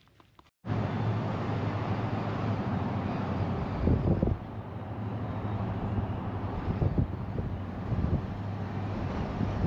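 Wind buffeting the microphone: a loud, steady rush with gusty low thumps, starting abruptly after a moment of near silence.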